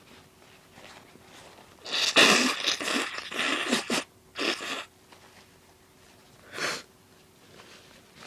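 A woman sneezing from allergies: a loud run of sudden sneezing bursts about two seconds in, then a shorter burst, and a brief one about six and a half seconds in.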